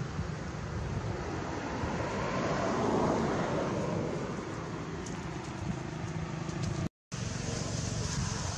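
Steady road traffic noise, swelling about three seconds in as a vehicle passes by, with the sound cutting out for an instant about seven seconds in.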